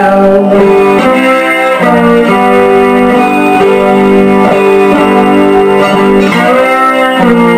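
Electric guitar played with a bottleneck slide in a blues passage: held, ringing notes, with pitch glides from the slide near the start and again late on.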